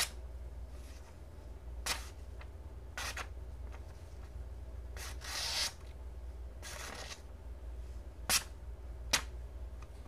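Knife blade slicing through paper, the factory edge of a Shirogorov F111 copy flipper knife: about seven short rasping cuts, one longer stroke in the middle. The edge bites in some spots and runs smooth in others, a sign that it is not razor sharp.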